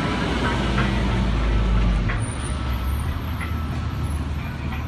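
Street traffic: a truck's engine rumbling as it drives past close by, loudest about two seconds in, then easing into a lower, steady traffic rumble.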